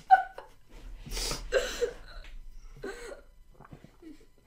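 A boy gagging and retching into a box on a mouthful of mayonnaise: a long, noisy heave about a second in and a shorter one near three seconds, with a brief laugh right at the start.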